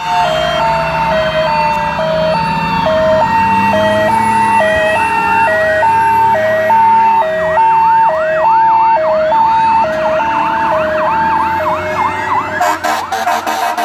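Several fire truck sirens sounding together: a hi-lo siren alternating between two pitches about once a second, a fast yelp joining in around the middle, and a slow falling wail near the start.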